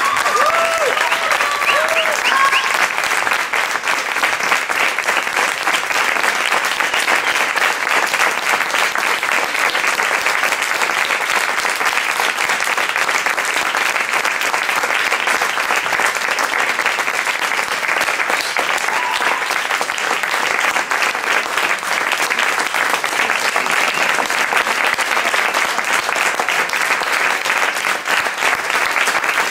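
Audience applauding steadily and heavily, with a few voices calling out over it in the first few seconds.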